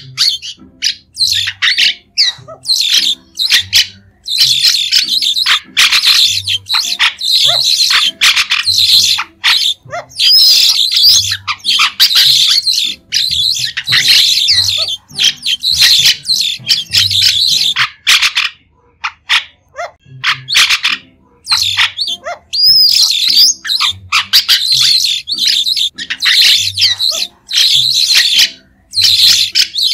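White-shouldered starlings calling: short, shrill chattering calls in rapid runs of a second or two, one after another, with a brief lull about two-thirds of the way through.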